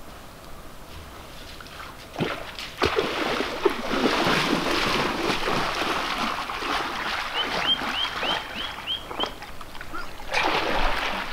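Water splashing and churning as a person wades into a lake and starts swimming, with sharp splashes from about two seconds in. A quick run of six high chirps sounds about two-thirds of the way through.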